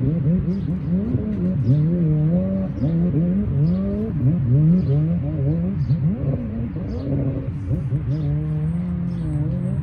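Jet ski engine running on the water, its pitch swinging up and down about every half second as the throttle is worked.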